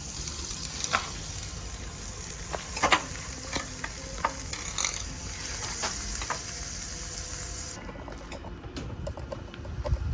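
Pork belly (samgyeopsal) sizzling as it grills, a steady hiss with scattered sharp pops of spitting fat. About eight seconds in the high hiss cuts off suddenly, leaving a low rumble.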